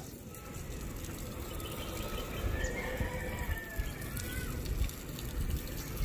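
Water from a hose splashing onto a freshly poured concrete floor slab: the slab is being watered during curing so the concrete does not dry out and crack.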